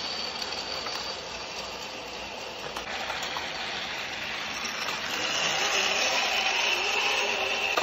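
Battery-powered toy train running on plastic track: the small motor whirring and the wheels rattling along the rails, a steady sound that grows louder with a higher whine about five seconds in.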